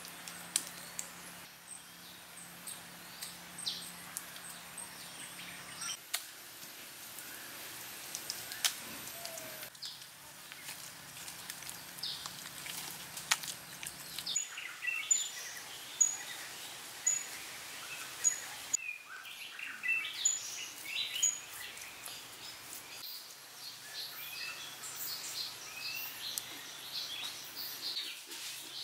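Forest ambience with birds calling, including a short high note repeated about once a second midway, over scattered soft clicks and slaps from hands working wet mud clay.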